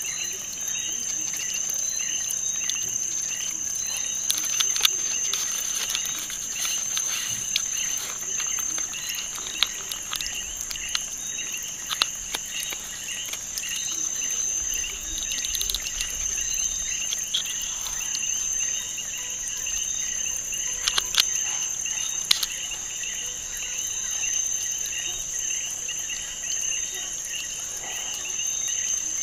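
Continuous insect chirping, a fast pulsing trill under a steady high-pitched whine, with a few sharp clicks scattered through it.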